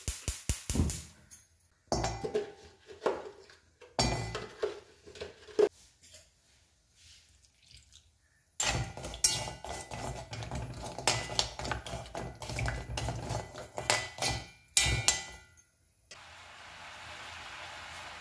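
A gas hob's igniter clicks rapidly as the burner is lit under an aluminium kadai. Then jaggery cubes and a steel spoon knock and clink against the pan. About two seconds before the end a steady bubbling hiss begins as the jaggery simmers in liquid in the kadai.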